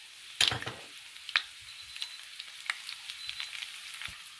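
Mustard seeds and dried red chillies frying in hot oil in a kadai: a steady sizzle with scattered sharp pops, the seeds crackling as they splutter. A louder rush of sizzling comes about half a second in.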